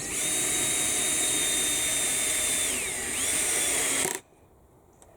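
Electric power drill running at speed with a steady high whine. It slows briefly about three seconds in, speeds up again, and stops abruptly about a second later.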